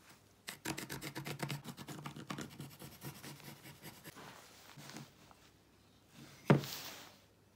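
Carpenter's pencil scratching along the edge of a heart template onto pine boards, in rapid short strokes that fade out about four seconds in. Near the end comes a single sharp knock, the loudest sound, as the wood meets the tabletop.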